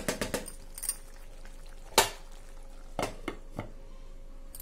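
Wooden spatula stirring rice in a metal cooking pot, a few quick scrapes and clicks at the start, with one sharp knock about two seconds in. A few clinks follow near the end as a glass lid is set on the pot.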